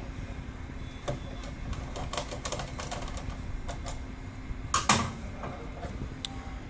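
Door handle and latch being handled: a run of sharp clicks and knocks, the loudest a double clack about five seconds in.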